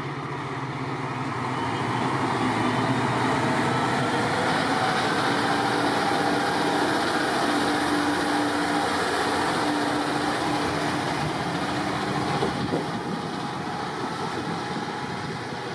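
HSOR-100 series diesel railcar pulling away from the platform. Its diesel engine runs under load with a steady hum as the car moves off past the camera, then fades as it draws away down the line.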